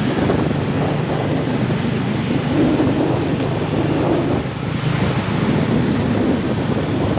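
Loud, steady low rumble of roadside traffic noise with wind buffeting the microphone.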